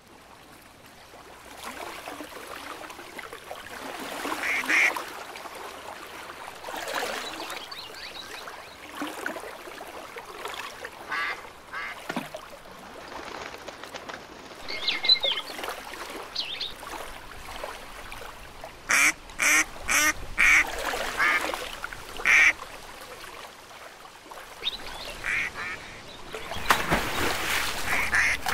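Ducks quacking in an artificial lake soundscape assembled from several field recordings: scattered calls, with a quick run of about five quacks after the middle and the sound growing louder and busier near the end.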